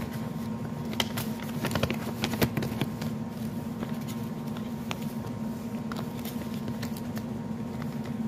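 Scattered small clicks and taps of objects being handled close to the phone's microphone, thickest a second or two in, over a steady low hum.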